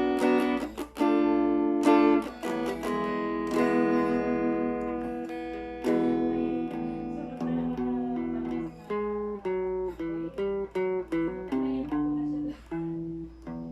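Thomson Stratocaster electric guitar played clean through a Laney amplifier. Ringing chords are strummed and let sustain, then from about nine seconds in it changes to a quicker run of short single notes. A steady low hum sits underneath.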